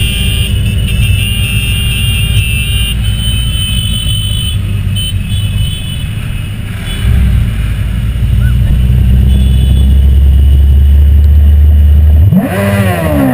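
Motorcycle engines running in a group ride, a steady low drone that gets louder about seven seconds in. Near the end an engine revs up sharply and falls back.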